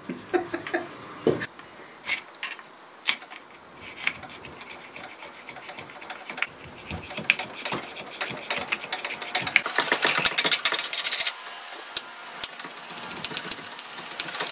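A hand edge tool scraping and shaving the glued wooden patches on a child's rocking-chair rocker held in a bench vise, trimming them down flush: a run of short scraping strokes with sharp clicks, busiest and brightest about ten seconds in.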